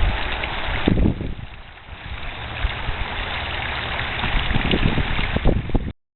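Park water fountain splashing, a steady rush of falling water with low rumbling thumps on the microphone; the rush dips briefly about a second and a half in.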